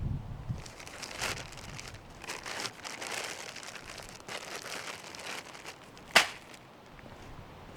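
Crinkling and rustling of gear being handled and pulled from a pack, in patches over several seconds, followed by one sharp click about six seconds in.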